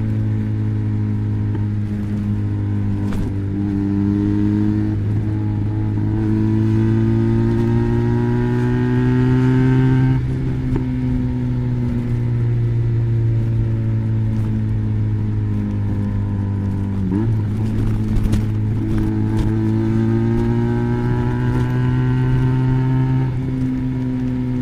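Benelli BN302's 300 cc parallel-twin engine running through an Arrow exhaust with the dB killer fitted. The engine pitch climbs slowly, drops about ten seconds in and sinks, then climbs again from about eighteen seconds.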